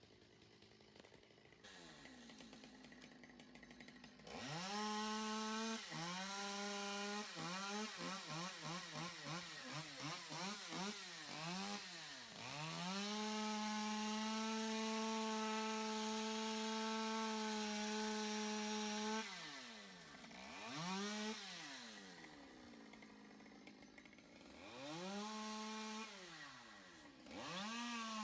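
Two-stroke chainsaw revving: it runs low at first, is throttled up about four seconds in, blipped quickly several times, then held at high revs for about six seconds. It drops back and is revved briefly two or three more times near the end.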